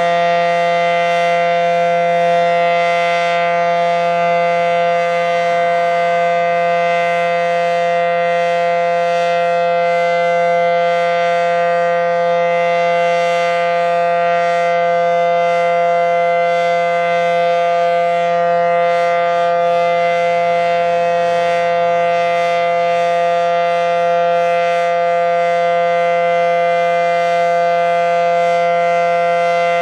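Federal Signal SD-10A outdoor warning siren sounding a steady alert signal at full speed, a loud held chord of several tones that neither rises nor falls.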